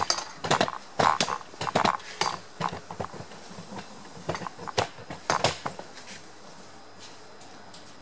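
A run of sharp clicks and clattering knocks, densest in the first two seconds and thinning out, stopping at about six seconds.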